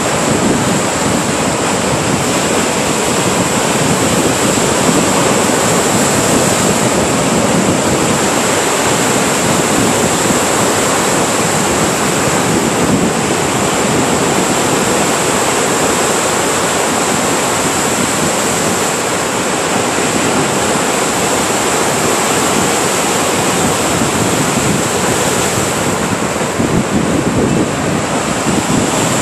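Lake Superior surf: waves breaking on the shore in a loud, steady rush, with wind on the microphone.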